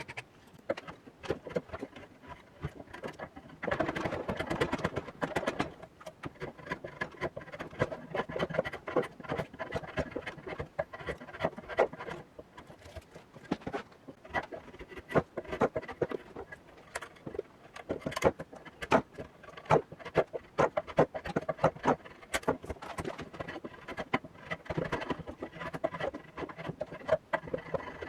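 Hand tool working the rusty hand-forged iron head of a pick/hoe: rapid, irregular scratching and scraping strokes on the metal, with a light ringing from the iron.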